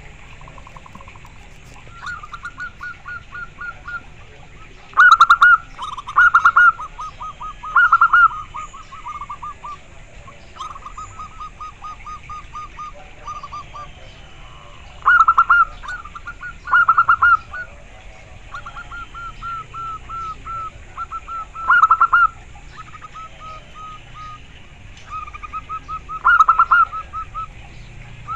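Zebra dove (local perkutut) cooing: phrase after phrase of rapid, evenly spaced staccato notes, softer runs broken every few seconds by louder clusters.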